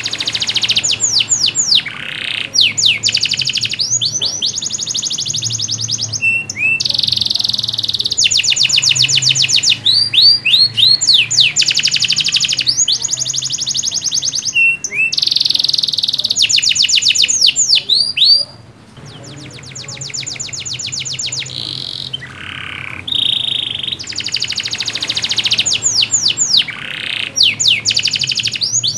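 A domestic canary singing a long, energetic song of fast trills and repeated swooping notes, with a brief break about two-thirds of the way through. This is the full 'gacor' song that keepers play to prompt a canary that has stopped singing into song.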